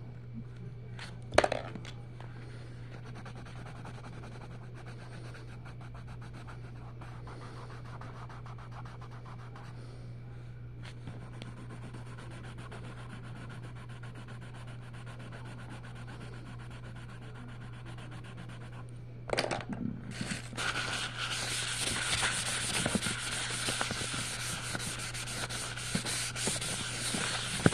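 Colored pencil scratching on a coloring-book page as it is shaded in, over a steady low hum, with a sharp tap about a second in. About two-thirds of the way through, a louder rough rubbing and rustling starts and carries on.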